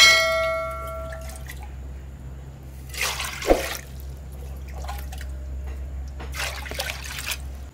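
Water poured into a wide aluminium pot and splashing in it, with a brief metallic ring at the start. More splashing follows twice later, over a steady low hum.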